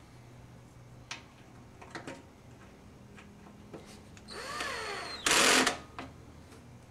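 Power screwdriver driving a Phillips panhead screw down into a sheet-metal panel: a few light clicks as the bit is set, then a motor whir that changes pitch under load, ending in a short loud burst as the screw is run home.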